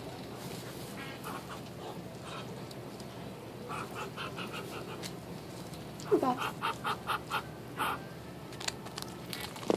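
Domestic ducks calling in quick runs of short quacking notes, once about four seconds in and again from about six to eight seconds, the second run opening with a call that drops in pitch.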